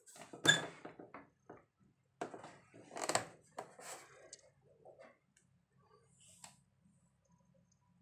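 Clunks and rattles of a microwave oven's metal casing and door being handled: a sharp metallic clunk about half a second in, a burst of knocks around two to four seconds, then a few light clicks over a faint low hum.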